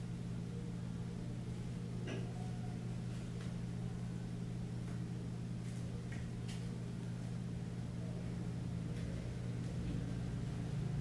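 A steady low hum, with a few faint rustles and ticks as yarn is pulled and unravelled from a knitted piece near the microphone.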